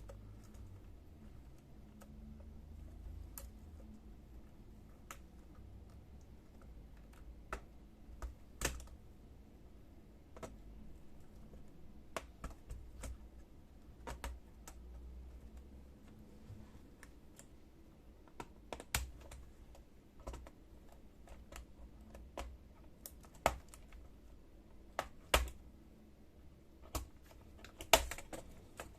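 Irregular sharp plastic clicks and taps as a small screwdriver pushes in the retaining hooks of an ASUS X59GL laptop keyboard and prises the keyboard loose. The loudest clicks come in the last few seconds.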